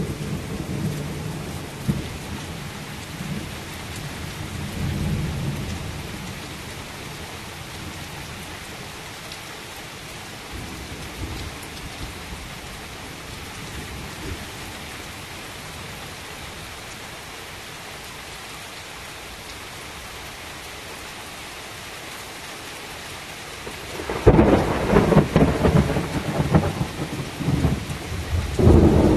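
Heavy rain falling steadily as a thunderstorm passes, with thunder rumbling low in the first few seconds. About 24 seconds in, a much louder, rough rumble breaks in and keeps going.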